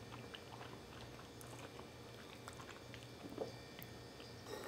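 Faint chewing of soft ravioli, with small wet mouth clicks, and a metal fork pressing into the pasta in a ceramic bowl.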